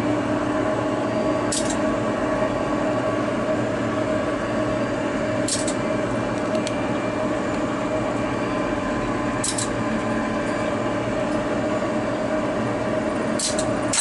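Old Westinghouse elevator traction machine in its motor room, giving a steady electric hum with two level tones. A short, faint click comes about every four seconds.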